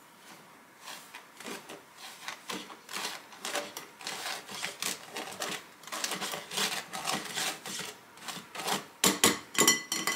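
Silicone spatula pushing flour through a fine-mesh wire sieve: quick, repeated scraping strokes of the spatula against the metal mesh, with a few louder knocks near the end.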